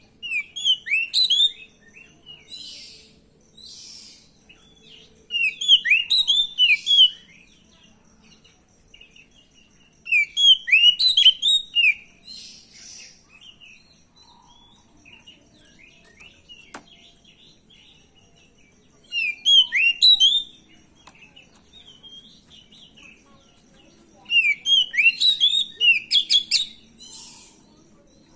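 Oriental magpie-robin (kacer), a young and stressed bird, calling in five loud bursts of rapid, high chirping notes, with softer harsh, rasping calls in between. It is a lure recording meant to make other magpie-robins answer.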